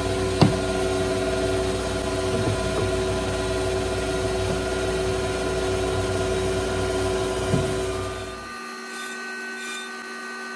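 Steady drone of a CNC router's machinery running at idle, with a sharp knock about half a second in as a particleboard test panel is set on the machine bed. About two seconds before the end the low rumble cuts off abruptly and a thinner, higher hum carries on.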